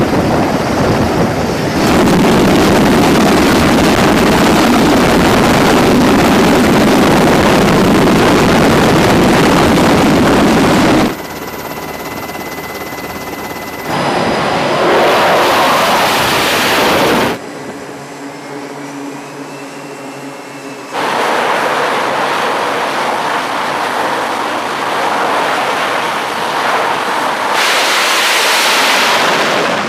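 Aircraft carrier flight-deck noise from a string of cut-together clips: a helicopter's turbines and rotor and jet engines running, loud stretches broken by short quieter gaps. The jet noise grows louder near the end.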